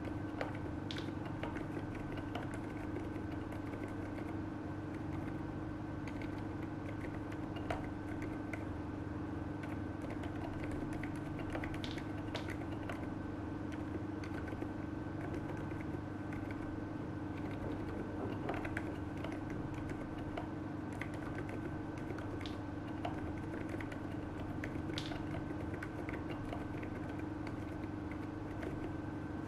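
Typing on a KBD75v2 mechanical keyboard fitted with lubed Boba U4 silent tactile switches: faint, irregular keystroke clicks over a steady electrical hum.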